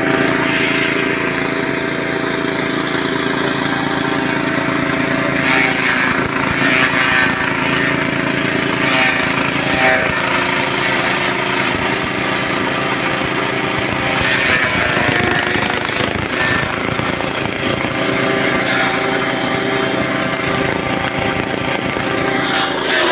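Chaff cutter belt-driven by a small engine that runs steadily, chopping dry stalks as they are fed in, with several louder bursts of splintering as bunches pass through the blades.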